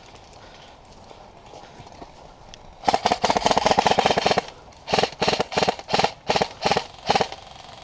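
Airsoft gun firing: a rapid full-auto burst lasting about a second and a half, then about seven short bursts in quick succession.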